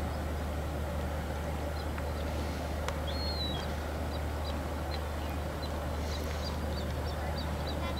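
Steady low engine drone with a constant hum, with faint short high chirps scattered over it.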